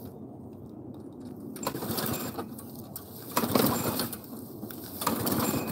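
Walk-behind gas lawn mower being pull-started: three pulls on the recoil cord, each a short burst of cranking, and the engine does not catch and run.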